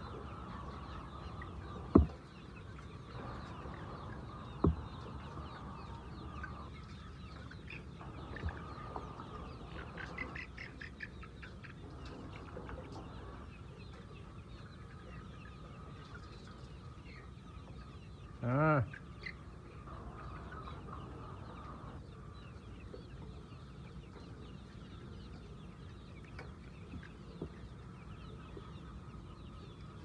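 A large flock of white chickens clucking and chattering steadily. Two sharp knocks come in the first five seconds, and one loud, short call stands out a little past the middle.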